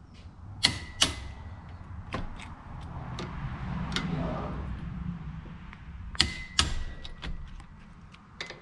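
Sharp metallic clicks and knocks from hand tools working on a hub adapter assembly. They come in a few separate strikes, two of which leave a brief ringing note.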